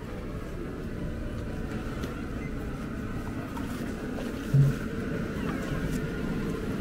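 Night-market street ambience: a steady low rumble like idling engines, with a short, loud low buzz about four and a half seconds in.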